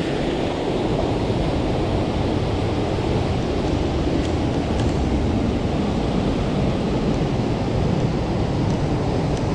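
Waterfall and river cascades in full spate, a steady loud rush of water; the flow is very high after days of rain.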